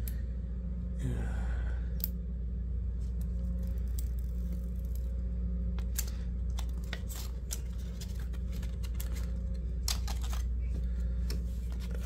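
Self-adhesive Talon grip pieces being peeled off their paper backing sheet: scattered small crackles and ticks, over a steady low hum.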